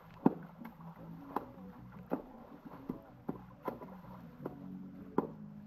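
Hands slapping and splashing the surface of a swimming pool, a dozen or so sharp smacks at an uneven pace, with a steady low hum underneath.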